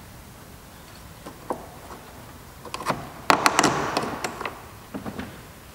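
Plastic trim removal tools prying a plastic push clip out of a car's grille panel. A single click comes first, then a burst of sharp plastic clicks and scraping about three seconds in, and a few more clicks near the end.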